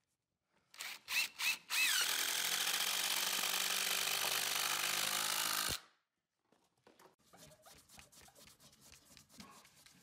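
A power driver sinking a long GRK #12 × 5-5/8 in structural screw into wood: a few short trigger bursts, then about four seconds of steady running with a whining tone that cuts off suddenly. Faint scattered clicks follow.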